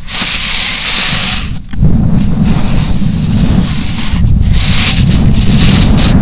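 Wind buffeting the microphone of a camera riding along with a snowboarder on a groomed slope, mixed with the hiss of the snowboard's edges scraping over packed snow in the turns. The low wind rumble gets much louder about two seconds in, and the higher hiss swells and fades with the turns.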